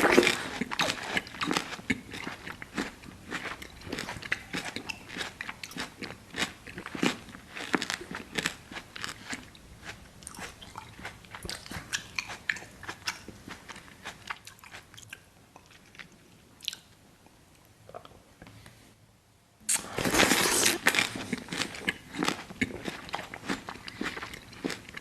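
Close-miked ASMR eating: a loud crunchy bite into watermelon, then steady chewing that thins out for a few seconds. A second loud bite comes about twenty seconds in, followed by more chewing.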